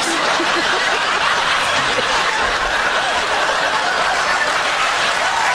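Audience laughing and applauding, a dense steady wash of clapping and laughter.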